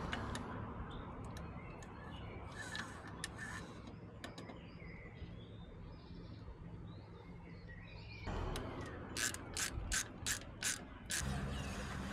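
Mechanical clicking and ratcheting from bicycle parts and hand tools as a road bike is worked on. It starts with scattered light clicks and ends with a run of about six sharp clicks at an even pace, roughly three a second.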